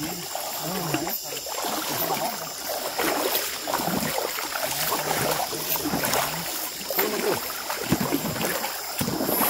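Water sloshing and splashing with irregular rustling, as of someone moving through shallow river water.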